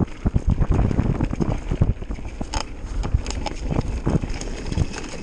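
Mountain bike running fast down a rocky dirt trail: tyres rolling and crunching over dirt and stones, with irregular knocks and rattles as the bike hits bumps, and wind buffeting the microphone.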